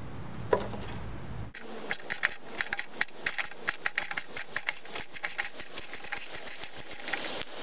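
Socket ratchet with an extension clicking in quick, uneven strokes as it backs out the bolts holding the carburetor to the cylinder head of a Briggs & Stratton OHV engine. The clicking starts about a second and a half in.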